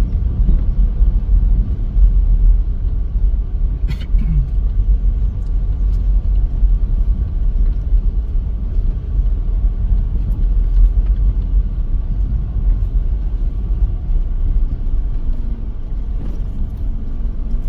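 Car engine and tyre rumble heard from inside the cabin, a steady low rumble as the car rolls slowly over a paver-stone street.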